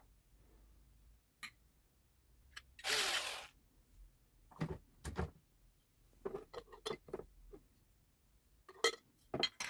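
Quiet handling of a metal jar lid and a glass jar: scattered small clicks and knocks, with a brief rubbing hiss about three seconds in. A run of small clicks in the second half comes as the lid is screwed onto the jar.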